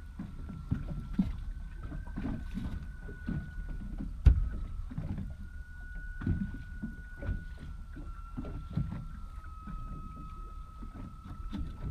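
Water lapping and slapping against the hull of a drifting rigid inflatable boat, with a faint steady high whine and one sharp knock about four seconds in.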